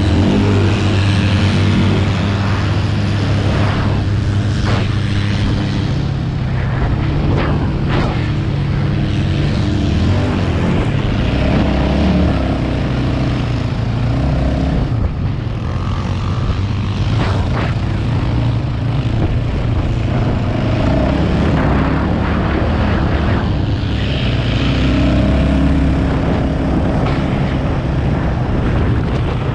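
ATV engine running under throttle while riding over sand dunes, its pitch rising and falling with the throttle, with wind noise on the microphone.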